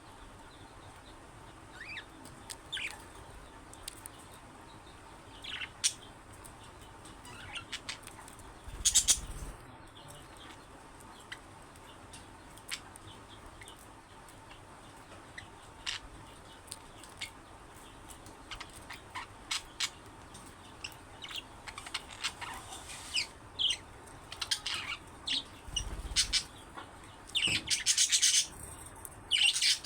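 Budgerigars chirping in short, scattered calls and clicks. A louder burst comes about nine seconds in, and a dense run of rapid chatter builds near the end.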